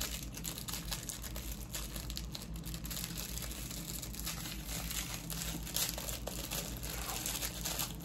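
Small clear plastic bag crinkling and rustling in the hands as a bracelet is worked out of it, a quick run of fine crackles.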